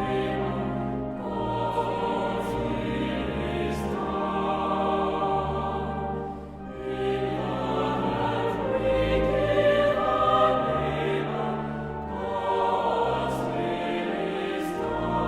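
Choir singing slow, sustained phrases, with a brief pause between phrases about six and a half seconds in.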